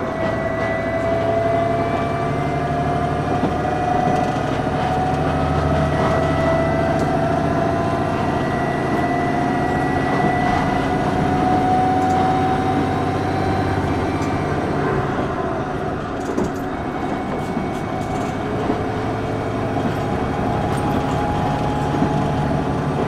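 Running noise inside a KiHa 110 series diesel railcar in motion: a steady mechanical rumble with a whining tone that rises slowly in pitch and falls away about fourteen seconds in.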